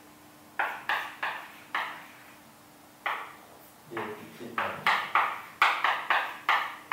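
Writing on a lecture board: a run of about fifteen sharp taps at uneven intervals, each with a short ring, coming faster in the second half.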